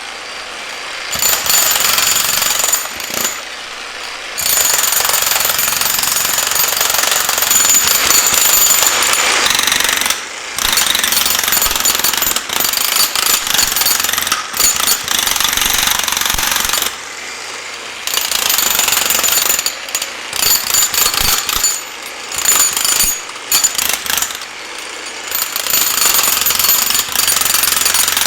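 Jackhammer hammering into concrete, breaking it up. It runs in long bursts, stopping and restarting about nine times for a moment each.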